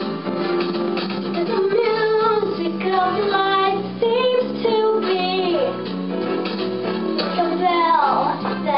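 A young girl singing a slow song with vibrato over instrumental accompaniment. She holds long notes and slides through ornamented runs.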